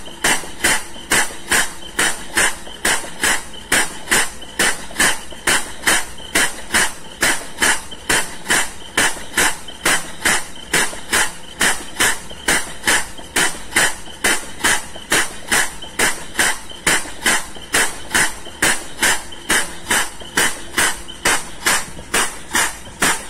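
Compressed-air-driven diaphragm pump running, a bit noisy, with a steady beat of about two and a half strokes a second. It is vacuuming the last crude palm oil out of a cargo tank.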